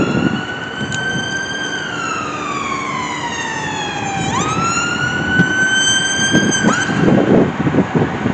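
Electronic siren of a Volkswagen paramedic response car on an emergency run. The tone falls slowly in pitch, snaps back up and holds, then gives a short quick yelp near the end before cutting off, over street traffic noise.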